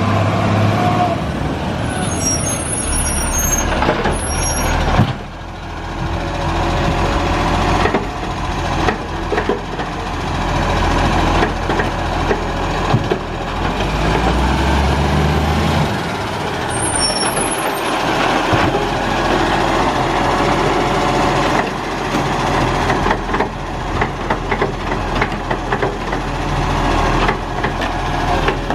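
Acco side-loader garbage truck's diesel engine running as it pulls up, with short air-brake hisses about three seconds in and again past the middle. Near the end the engine revs as the hydraulic arm grabs and lifts a wheelie bin, with a run of clanks and knocks.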